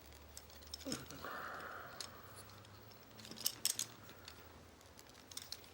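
Faint handling sounds from a plastic Transformers action figure: a few sharp plastic clicks, bunched together about three and a half seconds in, as its parts are moved.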